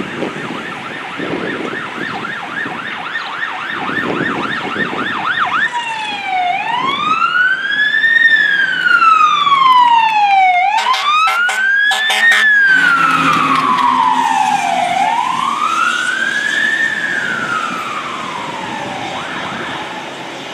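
Fire engine's electronic siren in a fast yelp, switching about six seconds in to a slow wail that rises and falls about every four and a half seconds. It is loudest around the middle as the engine passes, with a cluster of short air-horn blasts at that point.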